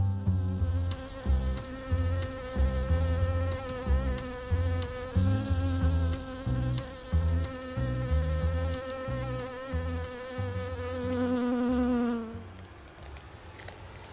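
Bee buzzing sound effect: a steady, slightly wavering drone that dips in pitch and cuts off about twelve seconds in.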